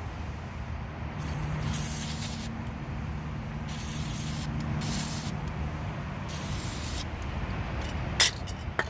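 Aerosol can of white lithium grease spraying in several short hissing bursts, lubricating a cleaned brake caliper slide pin. A steady low hum runs underneath, and two sharp clicks come near the end.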